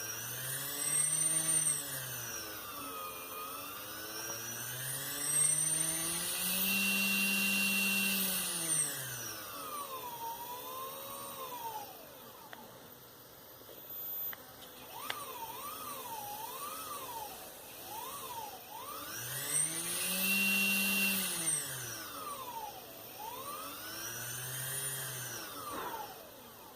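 Small RC brushless motor driven by a Lebowski controller, its electric whine rising and falling in pitch as it is sped up and slowed down several times, with a quick back-and-forth wobble in speed partway through.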